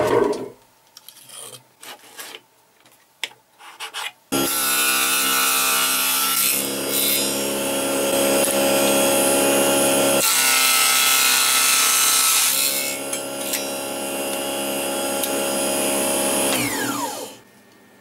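A small table saw switches on about four seconds in and runs with a steady motor whine while cutting thin wooden pieces. Near the end its pitch falls as the blade winds down. Before it start there are a few light clicks of handling.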